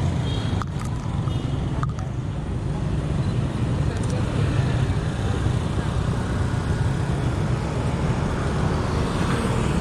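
Steady low wind rumble on a handlebar-mounted action camera's microphone as a bicycle rides along a street, with motorcycle and car traffic around.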